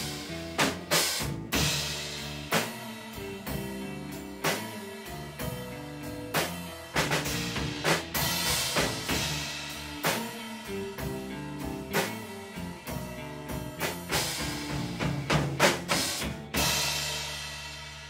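Live band playing an instrumental stretch with drum kit and pitched instruments, the drums hitting steadily. Near the end a big cymbal crash closes the song and rings out, fading away.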